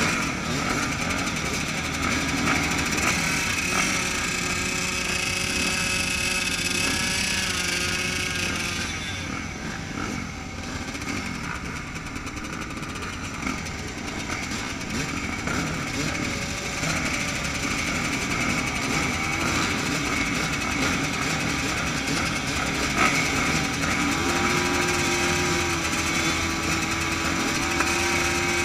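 Several motocross bikes idling together behind the starting gate, riders blipping their throttles so the overlapping engine note rises and falls.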